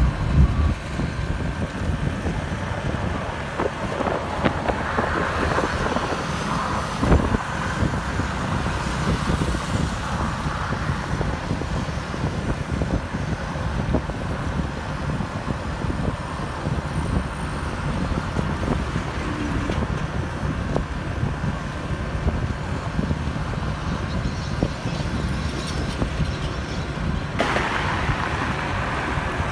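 Road and traffic noise heard from a moving vehicle: a steady low rumble of engine and tyres on the road, with passing cars and motorbikes. The sound changes abruptly near the end.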